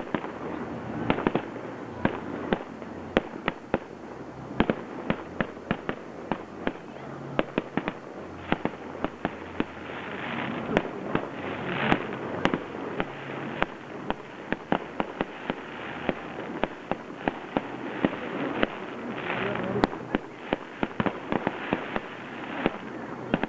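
Aerial fireworks display: a rapid volley of shell bursts and launch reports, several sharp bangs a second, over continuous crackling that swells twice.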